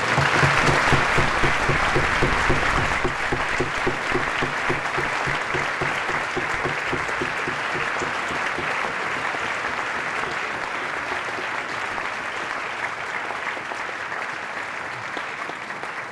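A large audience applauding. The clapping sets in at once, is loudest in the first few seconds and slowly dies down.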